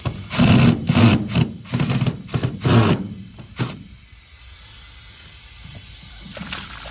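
Milwaukee Fuel cordless impact driver backing screws out of timber deck boards, running in a series of short loud bursts over the first three and a half seconds, then stopping.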